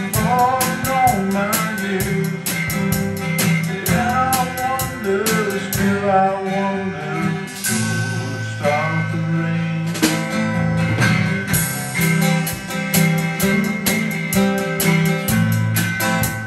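Live acoustic band music: strummed acoustic guitars over a drum kit keeping a steady beat, with a melody line coming and going over the chords.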